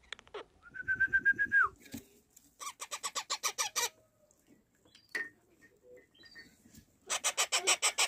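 Month-old parrot chicks giving rapid, pulsing begging calls in three bursts, several pulses a second. This is the typical food-begging of hand-reared chicks when a hand comes near.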